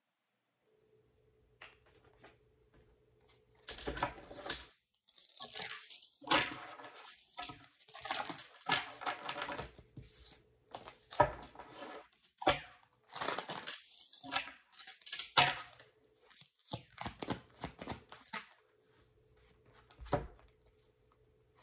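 A deck of oracle cards being shuffled and handled: a dense, irregular run of quick rustling, riffling bursts lasting about fifteen seconds, with a faint steady hum in the quiet stretches.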